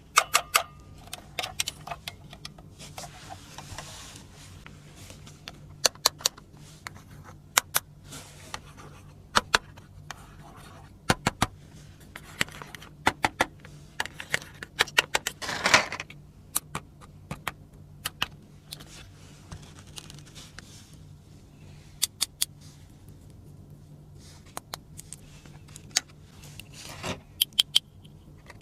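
Small plastic toy furniture pieces clicking and tapping as they are handled and set down, in scattered single clicks and quick clusters, with a few brief rustles of packaging. A faint steady hum runs underneath.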